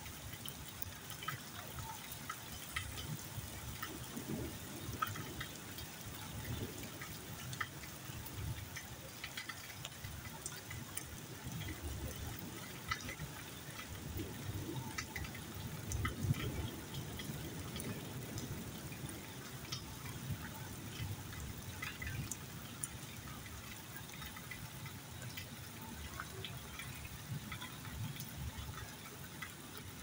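Steady rain falling, with many scattered drips and small splashes ticking over an uneven low rumble.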